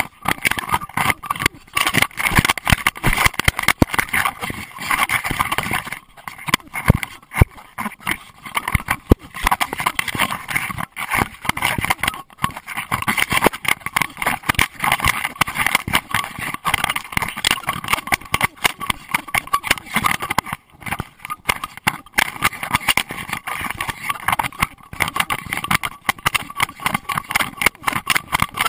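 A GoPro Hero2 in its waterproof housing, hung loosely under a running Doberman's chin, clattering and knocking irregularly with the dog's strides, with brief lulls in between.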